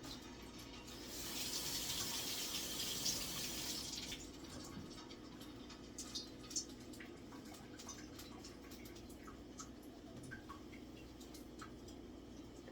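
A kitchen tap runs for about three seconds, starting about a second in. Then there is only a faint low hum with a few light clicks and knocks.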